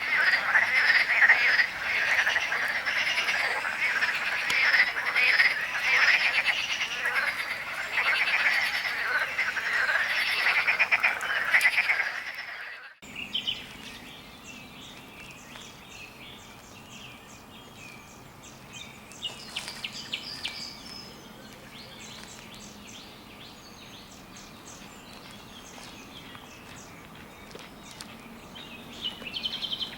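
A dense chorus of frogs calling, many rapid pulsed croaks overlapping, cuts off abruptly about two-fifths of the way in. After that it is a much quieter outdoor ambience with faint ticks and a few short high bird chirps.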